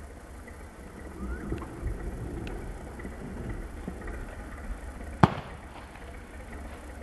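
A trebuchet projectile hitting the ground with one sharp smack about five seconds in, over a steady low rumble.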